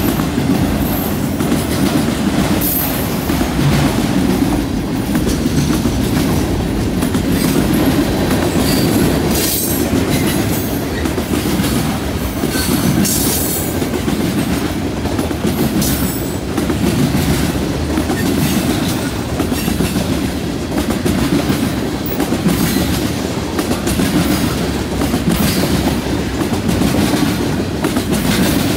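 A mixed freight train's cars (autoracks, covered hoppers, tank cars) rolling past with a steady heavy rumble and the clickety-clack of wheels on the rails. A few brief high-pitched wheel squeals come near the middle.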